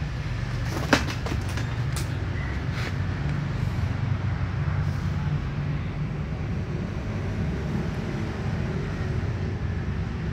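A cat crunching dry kibble: a few sharp crunches in the first three seconds, the loudest about a second in, over a steady low rumble.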